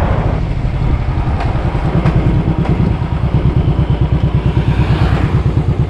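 Motorcycle engine running under way, with a steady, rapid low pulsing beat from its exhaust.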